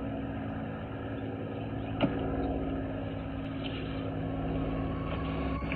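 Steady motor hum with a few fixed pitches, heard through a doorbell camera's muffled, narrow-band microphone, with one sharp click about two seconds in.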